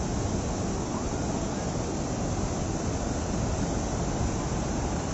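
The Mahakali River in flood, muddy floodwater rushing past in a steady, unbroken wash of noise that is heaviest in the low rumble.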